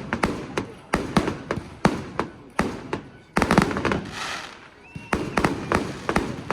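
Fireworks display: rapid sharp bangs and pops of exploding shells, several a second, with a hissing crackle about four seconds in.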